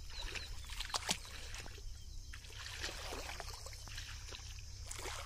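Muddy water sloshing and splashing in irregular bursts, over a steady low rumble.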